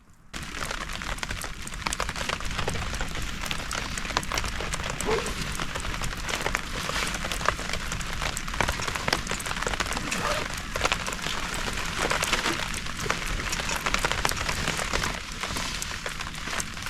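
Heavy rain falling, a dense, steady patter of drop hits that starts abruptly just after the beginning.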